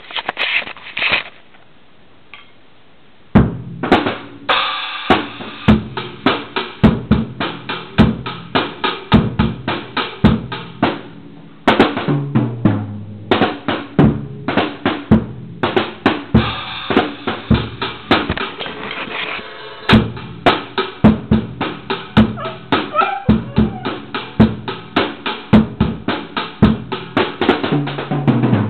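Drum kit played in loose, random beats, starting about three seconds in after a short quieter stretch.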